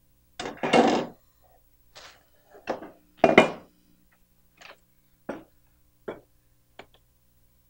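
Cookware being handled and set down on a counter: a string of separate knocks and clatters. The loudest come about a second in and a little after three seconds, followed by lighter knocks about a second apart.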